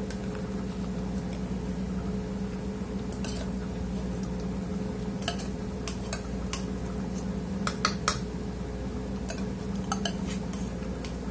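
Metal spoon clinking and scraping inside a tin can while scooping out beef liver paste, as irregular sharp clinks with a few louder ones about two-thirds of the way through. A steady low hum runs underneath.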